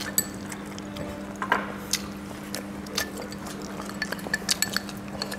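Chopsticks clicking and clinking against ceramic rice bowls and plates at a meal: a few light, spread-out clicks over a steady low hum.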